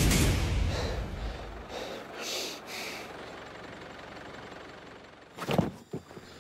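A deep rumble that dies away over the first second or two, leaving a low hiss with a few soft swells, then two sharp knocks near the end.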